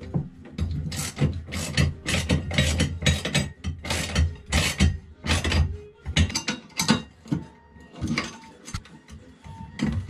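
Ratchet wrench clicking in quick repeated strokes while a bolt on a windvane's stainless mounting tube is worked; after about six seconds the strokes thin out to scattered clicks.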